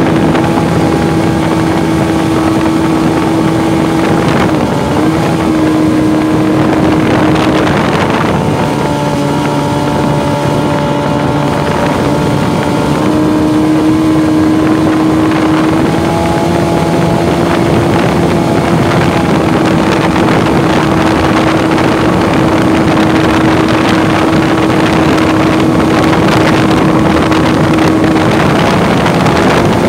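Mini jet boat's engine running steadily under way, its pitch shifting slightly a few times, with wind noise on the microphone.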